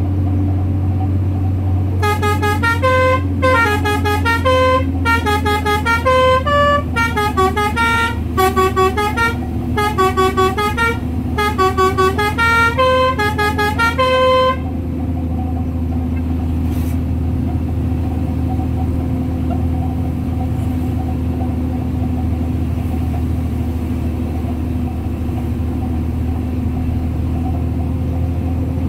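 A musical multi-tone vehicle horn plays a tune of short notes stepping up and down, starting about two seconds in and stopping after about twelve seconds. Under it a truck engine drones steadily throughout.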